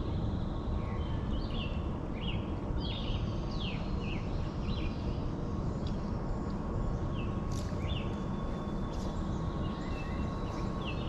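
Songbirds chirping again and again in short notes that fall in pitch, over a steady low rush of outdoor background noise.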